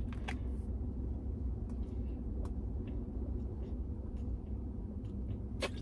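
A steady low rumble with a few faint, short clicks.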